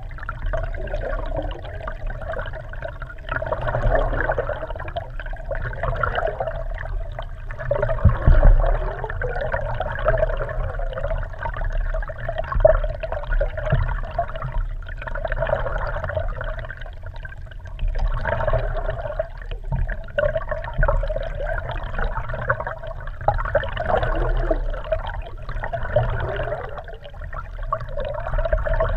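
Lake water rushing and gurgling around an underwater GoPro Hero3 in its waterproof housing, mounted under a kayak. The sound is muffled and swells and fades unevenly, with a low rumble beneath.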